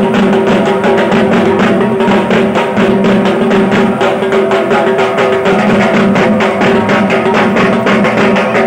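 Loud music with fast, steady drumming over a held low drone.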